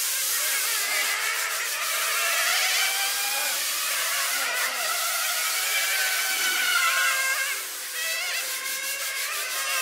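Electric touring RC cars' brushless motors whining, several overlapping high pitches rising and falling as the cars accelerate and brake around the track.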